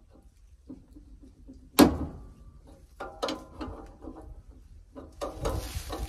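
Metal tools and parts knocking against a combine's steel frame and pulleys during hand repair work: one sharp, loud clank about two seconds in, then lighter knocks and clinks.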